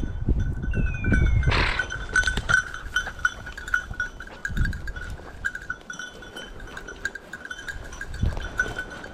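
Bells on hunting dogs' collars ringing and jingling steadily as the dogs move through heather, with rustling through the undergrowth in the first couple of seconds and a short falling whistle-like tone under a second in.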